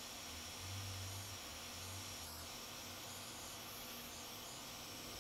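Hot air rework station blowing on a circuit board to desolder a MOSFET: a faint, steady hiss of airflow, with a faint low hum in the first couple of seconds.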